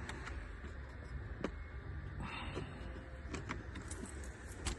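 Scattered small clicks and a brief rustle of hands working plastic cable clips and the joystick wire on an electric wheelchair frame, with the sharpest click near the end.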